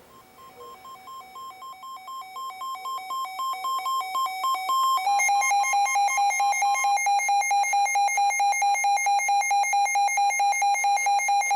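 NOAA Weather Radio receivers sounding their electronic alert alarms for an incoming severe thunderstorm warning. It starts as a rapid beeping alternating between two tones that grows steadily louder. About five seconds in, a louder rapid beep on a single tone takes over.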